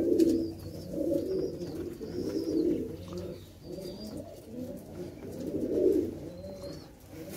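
Domestic pigeons cooing, a run of overlapping low, warbling coos coming about once a second, with faint high chirps above them.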